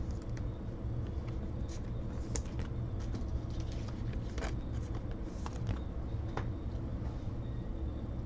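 Scattered light clicks and taps of trading cards being handled on a table, over a low steady hum.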